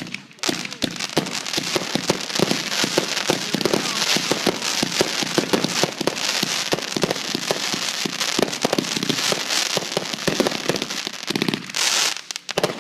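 Crackling fireworks: a dense, rapid string of sharp pops, many per second, lasting about twelve seconds, with a louder burst near the end.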